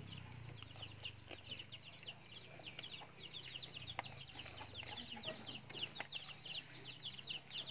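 Chicks peeping in a steady stream of short, falling, high-pitched chirps, several birds calling over one another.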